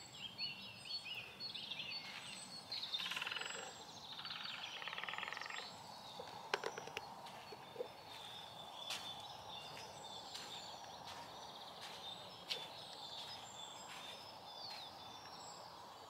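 Wild birds chirping and singing, with a rapid trilling call about three seconds in and a few sharp clicks scattered through.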